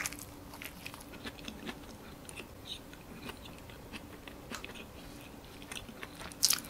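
Close-miked chewing of a soft white-bread sandwich filled with pandan kaya and coconut: a bite at the start, then a run of small wet mouth clicks while chewing, with a sharper click near the end.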